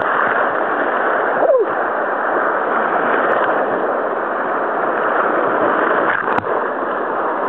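Rushing whitewater of the Little Colorado River rapids, a steady close splashing and churning of water, with one brief falling vocal cry about a second and a half in.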